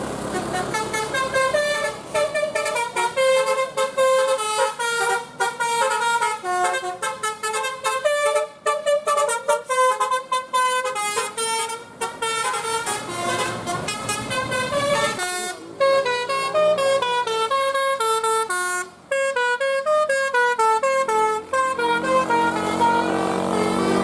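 Basuri telolet musical bus horn playing a fast melody of short pitched notes that step up and down, with the tune changing about two-thirds of the way in. A low rumble, like the bus engine, rises under the horn near the end.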